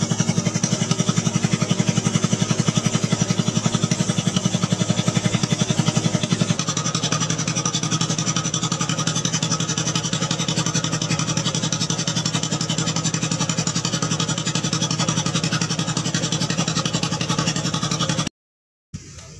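Small boat's engine running steadily with a rapid, even putter. About a third of the way in its note drops lower and a little quieter, and it cuts off suddenly near the end.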